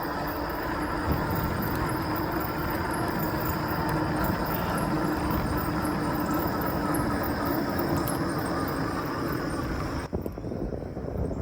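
Ecotric fat-tire electric bike riding along a paved road: tyre and wind noise with a steady hum and whine from the rear hub motor. About ten seconds in, the whine and the high hiss cut off abruptly.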